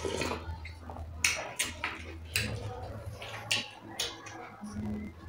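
Close-up eating sounds: wet mouth smacks and clicks of chewing, a few every second, over a steady low hum.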